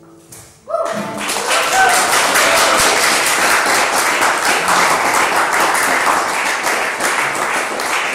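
Audience applauding at the end of an acoustic band's song. The last note dies away, then the clapping starts suddenly about a second in and goes on steadily, with a short voice call near the start.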